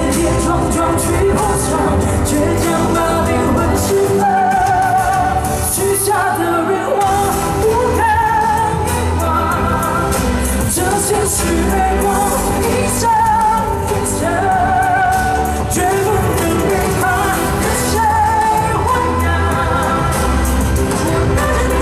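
A woman singing a pop song live into a handheld microphone over backing music with a steady bass beat, heard through the concert's loudspeakers.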